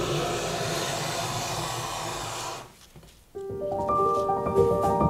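Handmade wenge-bodied hand plane taking one long shaving along a board's edge: a steady shaving rush lasting about three seconds. Piano music starts about three and a half seconds in.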